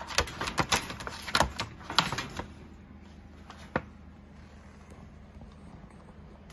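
Wire pet pen rattling as a black cat moves against the bars: a quick run of clicks and knocks in the first couple of seconds and one more a little before four seconds, over a low steady hum.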